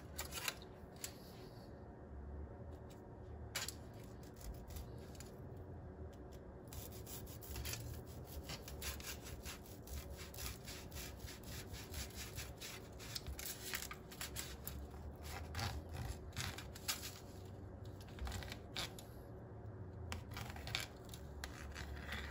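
A long kitchen knife sawing and scraping through a baked cassava pone in its pan, in short, irregular repeated strokes.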